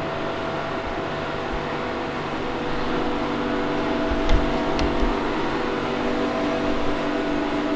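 Electric motor of a powered slip-roll sheet-metal rolling machine running with a steady hum. Two light clicks come near the middle.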